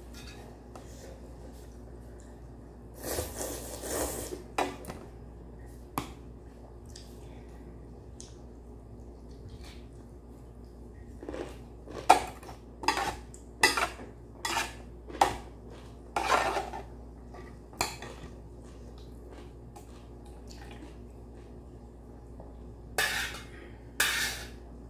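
Metal chopsticks knocking and scraping against a stainless-steel ramyeon pot and its lid: scattered clinks, a quick run of about eight in a row in the middle, and two more near the end.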